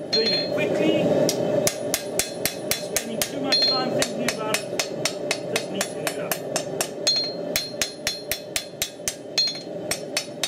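Hand hammer striking a hot steel knife blade on an anvil in quick, even blows, about four to five a second, with a couple of short pauses early on.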